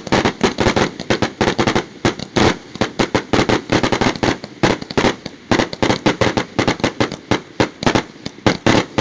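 Backyard aerial fireworks firing a grand finale: a dense, rapid string of launches and bursts, several a second, without a break.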